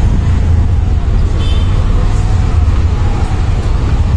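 Auto-rickshaw engine running with road noise while riding in the passenger cabin, a steady low rumble. A brief high tone comes through about a second and a half in.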